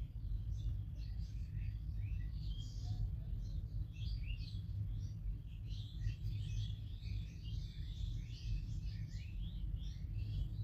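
Small birds chirping: many short, quick calls overlapping all through, over a steady low rumble.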